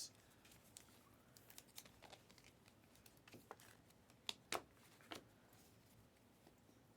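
Near silence with scattered faint clicks and taps of trading cards being handled, a few sharper clicks about four to five seconds in.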